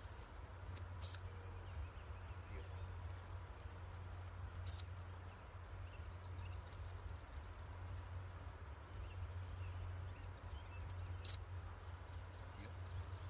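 Dog-training whistle blown in three short, sharp blasts, the second about three and a half seconds after the first and the third some six seconds later: the sit command, over a low steady background hum.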